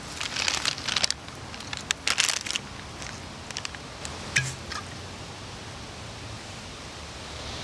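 Brown paper bag crinkling in short bursts as a bottle wrapped in it is handled, busiest in the first three seconds, then a few lighter rustles.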